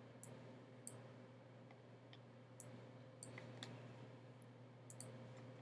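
Near silence with faint, scattered clicks of a computer mouse, a dozen or so at uneven intervals, over a low steady hum.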